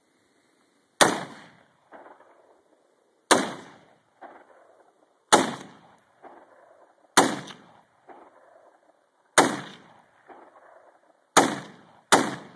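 Bushmaster AR-15 semi-automatic rifle firing single shots, about one every two seconds, then two shots in quick succession near the end. Each report is followed about a second later by a fainter echo off the surrounding hills.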